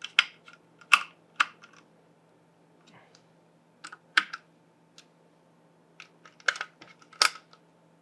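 Irregular light clicks and taps of a small screwdriver and metal screws as the metal heatsink cover of an Asus Hyper M.2 expansion card is screwed back on, each screw driven until it bottoms out.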